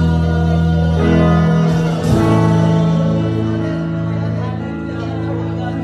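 Live worship music: a man and a young woman singing into microphones over amplified instrumental accompaniment, with long held chords that change a couple of times.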